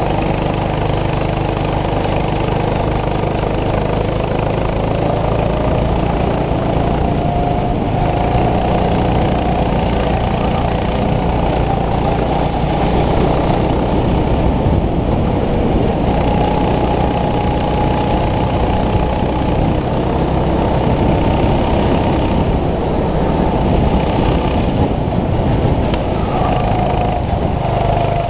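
Racing kart engine heard from on board the kart as it drives out onto the track, its pitch climbing as it accelerates a few seconds in, then rising and falling with the throttle through the corners.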